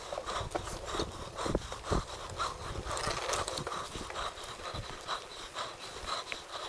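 Giant Reign full-suspension mountain bike rolling fast down a dirt and leaf-litter trail, its frame, chain and suspension knocking and rattling at every root and bump, with the rider breathing hard.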